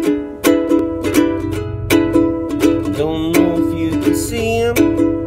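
Ukulele strummed in a steady rhythm; about three seconds in, a voice starts singing over it.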